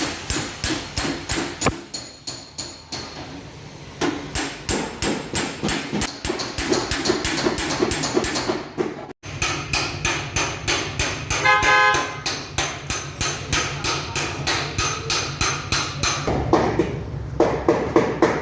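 Rapid, regular hammer taps on a Toyota Land Cruiser's body panel, about five a second, as in paintless dent repair tapping the dent down. A brief tone sounds about eleven seconds in.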